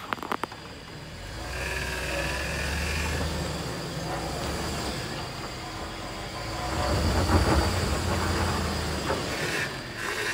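Lifted Chevrolet Suburban crawling over rocks at low speed: the engine rumbles at low revs while the tyres crunch over loose rock, loudest about seven seconds in. A brief high squeal sounds about two seconds in, and a few sharp clicks at the very start.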